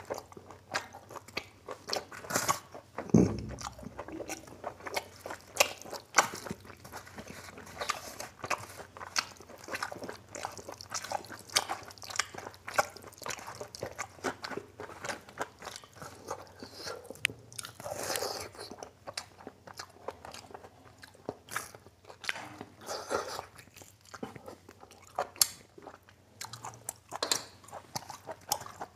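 Close-miked eating sounds: a man chewing and smacking on mouthfuls of mutton curry and rice eaten by hand, with wet sounds of fingers mixing rice into the gravy, as many short irregular clicks. There is one low thump about three seconds in.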